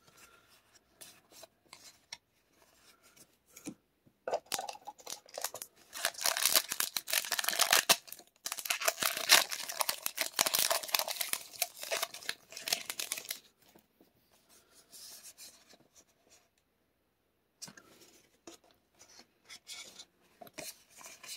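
Magic: The Gathering booster pack's foil wrapper being opened, crinkling and tearing for about nine seconds starting about four seconds in, with softer rustling of wrapper and cards before and after.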